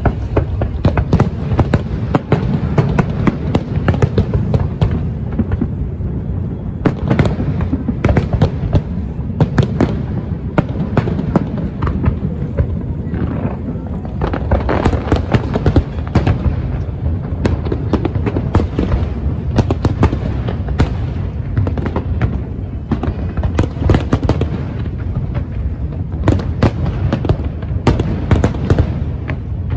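Large aerial fireworks display: shells bursting one after another in a dense run of sharp bangs, over a continuous low rumble.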